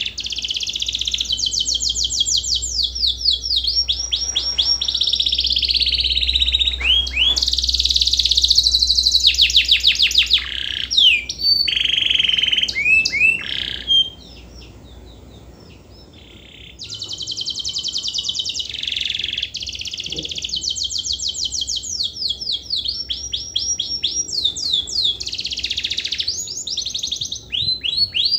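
Domestic canary singing a long song of fast rolling trills and repeated high notes, breaking off for about three seconds around the middle before starting up again.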